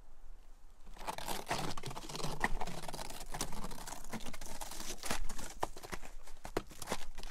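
Footsteps in snowshoes crunching and crackling through a thin layer of snow, starting about a second in and going on as a dense run of crisp crunches.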